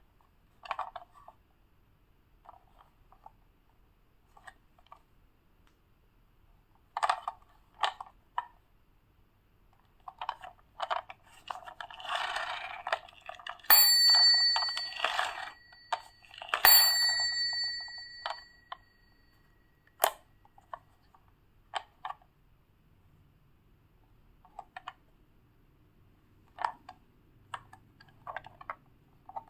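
A small bell struck twice, about three seconds apart, each ring fading over a couple of seconds, amid scattered clicks and rattles of a plastic toy being handled.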